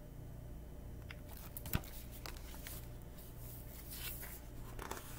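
Hardcover picture book being handled and lowered: soft rustles and light clicks, with one sharp knock a little under two seconds in, over a faint low hum.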